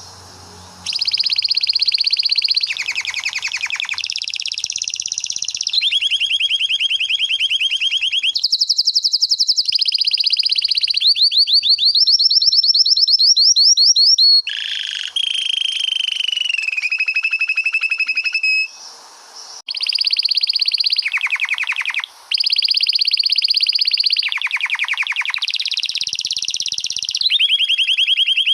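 Male canary singing a long rolling song: fast trills that jump to a new pitch every second or two, starting about a second in, with two short breaks in the last third.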